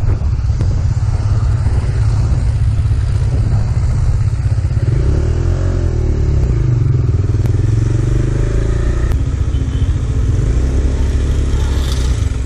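Kawasaki Dominar 400's single-cylinder engine running through an aftermarket muffler as the motorcycle is ridden, a deep, bassy exhaust note. The revs rise and fall around the middle, then settle.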